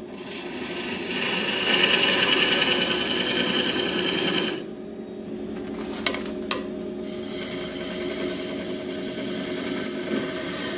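A gouge cutting into a spinning wood blank on a lathe: a rasping hiss of shavings peeling off. It is loudest for the first few seconds, drops about four and a half seconds in, then goes on as a lighter, steadier cut with a couple of brief clicks.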